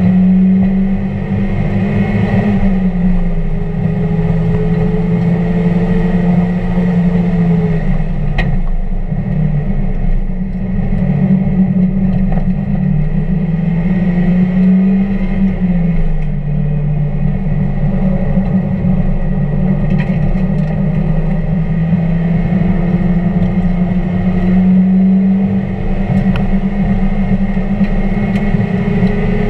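1999 Mazda Miata's 1.8-litre four-cylinder engine running hard on a racetrack lap. Its pitch rises and falls several times as the car accelerates and lifts or shifts.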